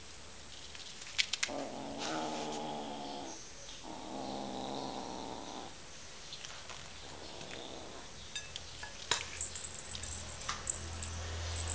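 Kitten growling low over its prey: two drawn-out growls of a second or two each, a few seconds in. Near the end comes a run of sharp clicks and scrapes, louder than the growls.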